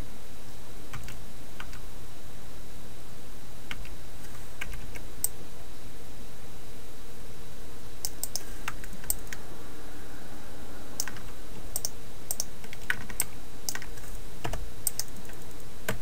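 Computer keyboard keys tapped in scattered single clicks, sparse at first and more frequent in the second half, over a steady low hum.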